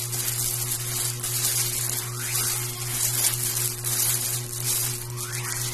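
Clear plastic packaging bag crinkling and rustling as it is pulled open and handled, with many small crackles, over a steady low hum.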